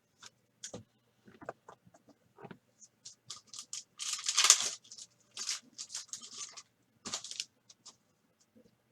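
Football trading cards and a foil pack wrapper being handled: scattered crinkles and card slides, with the loudest stretch of crinkling and tearing a little past the middle.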